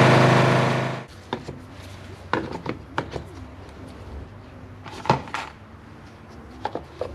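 John Deere 325 lawn tractor engine running, then shut off abruptly about a second in. A few light clicks and knocks follow.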